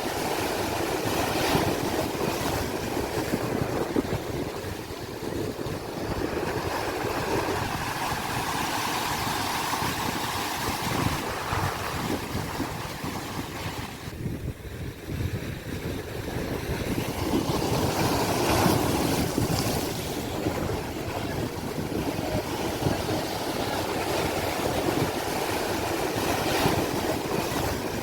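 Sea waves washing in and drawing back. The noise rises and falls in long swells, with a quieter lull about halfway through.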